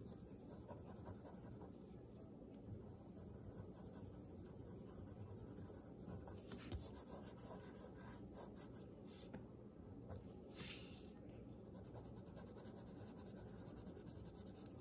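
Graphite pencil shading on paper: faint, scratchy strokes, with a few louder strokes about six and ten seconds in.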